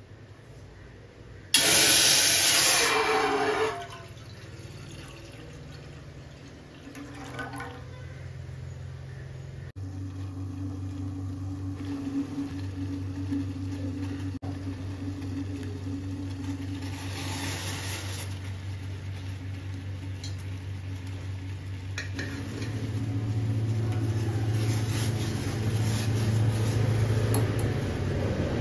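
Water poured into a vessel in a loud splashing rush of about two seconds, starting a couple of seconds in, followed by a steady low hum that grows louder near the end.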